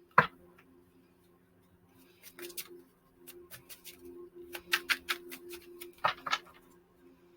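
Tarot cards being shuffled and handled: one sharp snap just after the start, then from about two seconds in a run of light, irregular card clicks and flicks, over a faint steady low hum.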